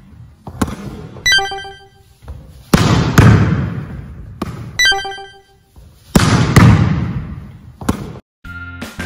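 Volleyball drill: a volleyball is hit hard and then forearm-passed back, sharp smacks in pairs about half a second apart, twice, echoing around a gymnasium. Shorter ringing pings come between the pairs.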